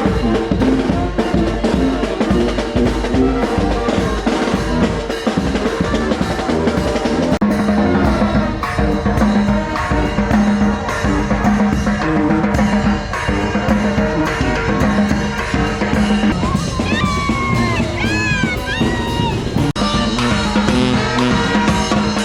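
Music with a drum beat and steady low held notes, with a short wavering, gliding high tone about three-quarters of the way through.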